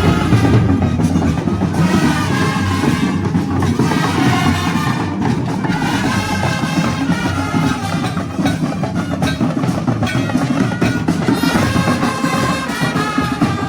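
Music with heavy drumming and percussion.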